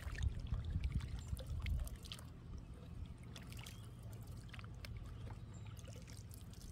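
Quiet water sounds around a kayak: light trickling with scattered small drips and taps, over a low steady hum. A louder low rumble in the first two seconds then drops away.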